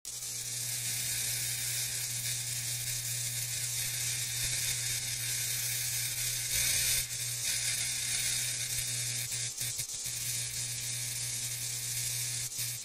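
Electric arc crackle sound effect: continuous sizzling crackle over a steady low hum, with a louder surge about six and a half seconds in.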